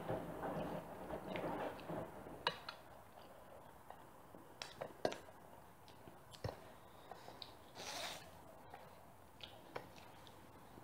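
Faint eating sounds: scattered short sharp clicks of metal forks against ceramic plates, with quiet chewing in between.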